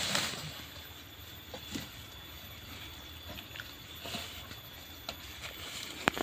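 Faint, quiet outdoor background with a few soft knocks and rustles as men lever a felled sengon log through the grass with wooden poles.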